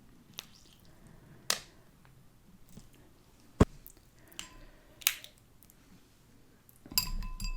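Close-up eating sounds from someone eating mussels: scattered sharp mouth clicks and smacks, one much louder than the rest in the middle, and a short ringing clink near the end.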